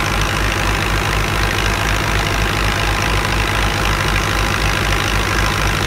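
Fiat 640 tractor's diesel engine running steadily with a regular low throb about three or four times a second, under a steady rush of noise from the thresher it drives.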